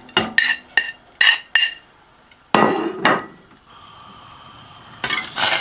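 A metal utensil clinking against a stainless steel saucepan about six times in quick succession, each clink ringing briefly, as sugar is added to the pan. A longer rough scraping rustle follows in the middle, then a steady faint hiss and another short scrape near the end.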